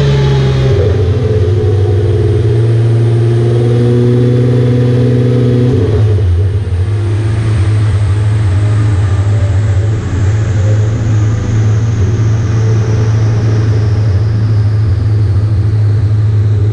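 Kia Stinger twin-turbo 3.3 V6 running hard on a chassis dyno during a setup pull, its engine note holding a steady pitch with a couple of small steps in tone. A faint high whine falls slowly in pitch throughout.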